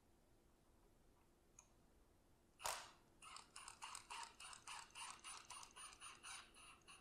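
Cordless ratchet working a bolt on an engine: one sharp click, then the ratchet head clicking steadily at about five clicks a second for nearly four seconds.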